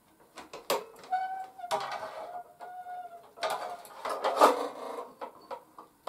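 Tool converter of a Hoover Convertible 1060 upright vacuum being handled and pushed into place with the motor off: scattered clicks and knocks, two short squeaks of parts rubbing about a second and two and a half seconds in, and a louder clatter near the middle as it is fitted.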